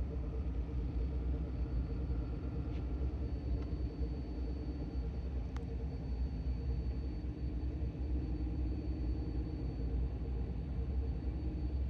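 A car running steadily, a continuous low rumble with a faint steady high tone over it.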